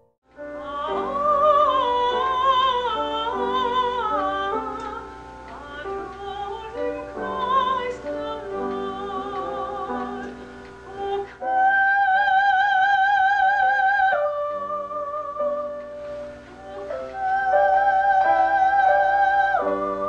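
A woman singing in a classical, operatic style with wide vibrato, over piano accompaniment, holding two long high notes in the second half.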